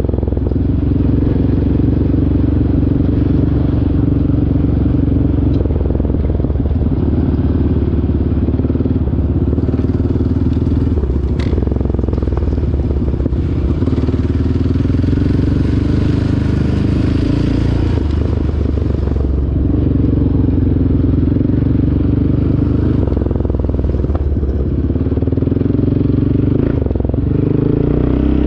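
ATV engine running at a steady pitch while being ridden.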